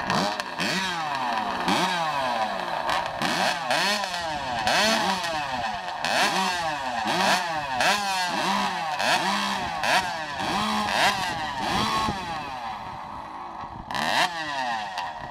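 Chainsaw cutting through a log, its engine pitch dipping under load and climbing again over and over, roughly once or twice a second, until near the end.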